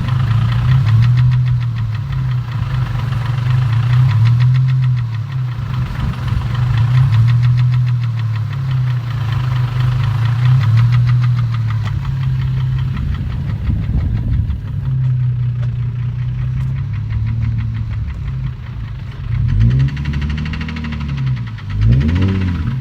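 2004 Infiniti G35's 3.5-litre V6 idling unevenly with a rapid knock from the engine, which the owner takes for rod knock. The engine is revved briefly twice near the end.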